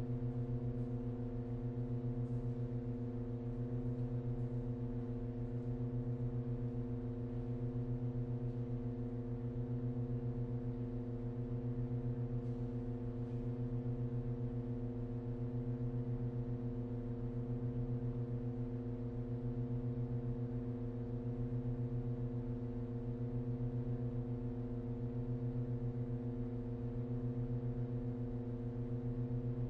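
Pipe organ holding a steady low cluster of tones that does not change, with a gentle pulsing swell about every two seconds.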